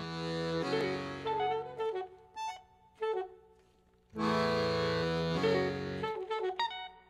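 Intro theme music: a held chord swells in at the start and again about four seconds later, with a short melody line in between.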